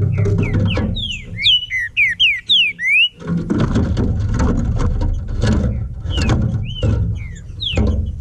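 Green-winged saltator (trinca-ferro) singing a phrase of clear whistled notes that slide up and down, over the first three seconds, with a few more notes near the end. Loud, dense low rumbling noise runs under it and takes over in the middle.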